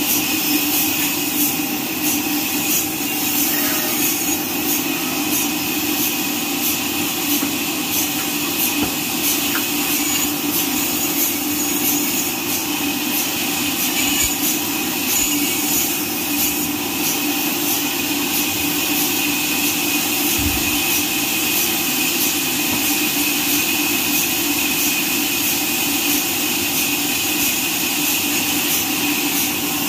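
Horizontal band sawmill running steadily as its blade cuts lengthwise through a neem log: a constant-pitched mechanical whine over a sawing hiss.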